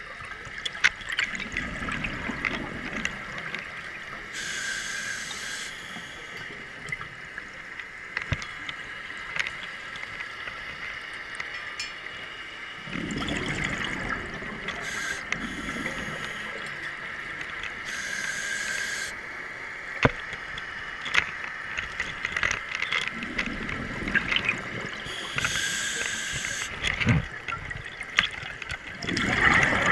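Scuba diver's regulator breathing underwater: exhaled bubbles gurgle out in bursts every several seconds, over a steady high tone and a few sharp clicks.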